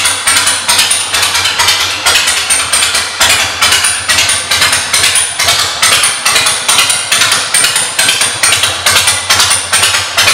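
Harley-Davidson Softail Deuce V-twin idling with a steady, even pulsing beat through Vance & Hines aftermarket exhaust pipes.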